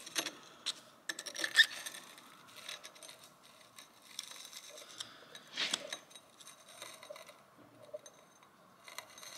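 A screwdriver scraping and picking at rust-packed debris and mangled needle rollers inside an old engine crane's steel wheel hub: intermittent scrapes and light clicks, with louder scrapes about a second and a half and five and a half seconds in.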